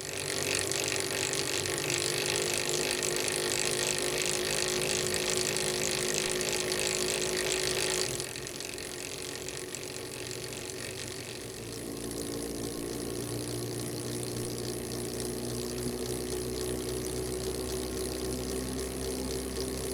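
Steel roller chains running over sprockets on a test rig. The standard RS roller chain comes first, loud with a bright hissing rattle. About eight seconds in it switches suddenly to Tsubaki's low-noise drive chain, whose spring rollers absorb the roller-on-tooth impacts, so it runs noticeably quieter and duller.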